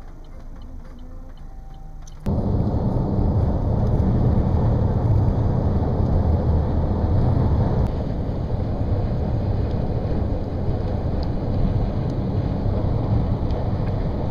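Steady rushing wind and road noise from a moving car, starting abruptly about two seconds in after a quieter stretch.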